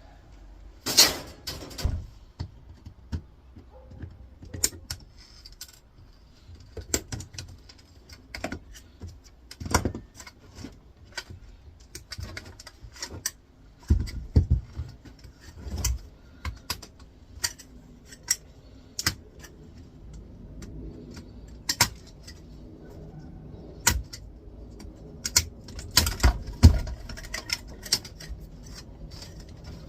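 Irregular clicks, taps and rattles of small metal and plastic parts being handled and knocked together while a flatscreen computer monitor is taken apart by hand.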